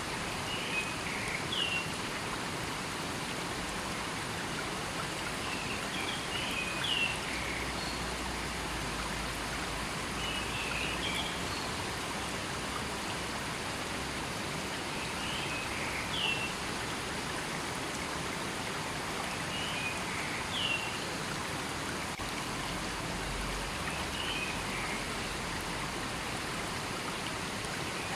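River water flowing steadily over rocks, a constant rushing. A bird repeats a short high call phrase about every four to five seconds.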